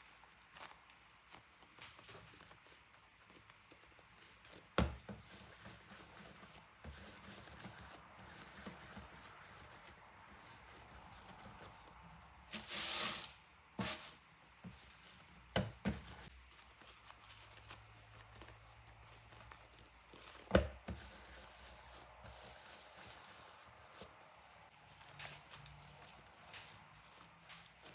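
Quiet kitchen handling sounds of bapao dough being prepared, with a few sharp knocks on the work surface and a short hiss about thirteen seconds in.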